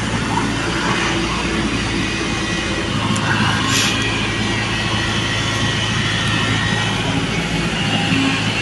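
Excavator engine running steadily at work, with a brief higher-pitched sound about four seconds in.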